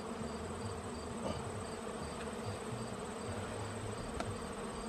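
A steady buzz of many honeybees flying around an open hive.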